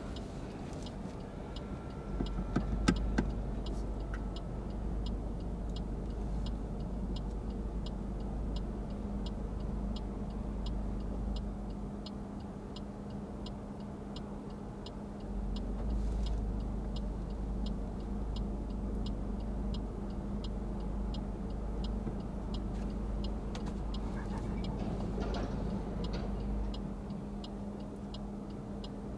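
Inside a car, a turn-signal indicator clicks steadily at about two to three clicks a second over a low engine and road hum. There is a brief knock about three seconds in.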